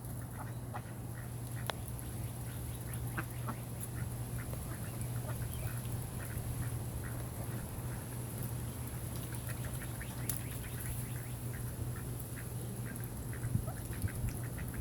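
Ducks feeding on bird seed: many soft, quick clicks and taps scattered a few times a second, with a steady low hum underneath.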